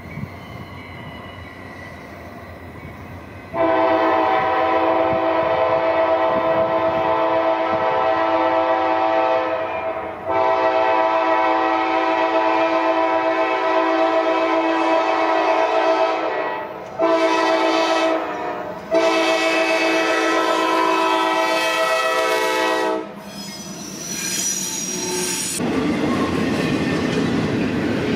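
Norfolk Southern locomotive's multi-chime air horn sounding the grade-crossing signal: long, long, short, long. The train then rolls by with a steady rumble of wheels on rail and a brief high squeal.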